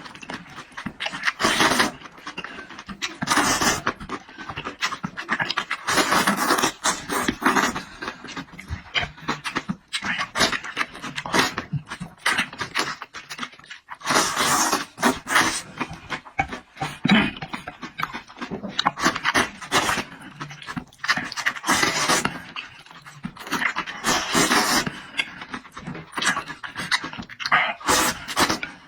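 Close-up eating sounds from one person: noisy chewing, slurping and breathing through the mouth, in repeated bursts every second or two.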